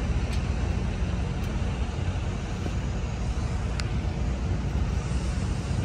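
Steady low rumble of vehicle noise, with three faint sharp clicks.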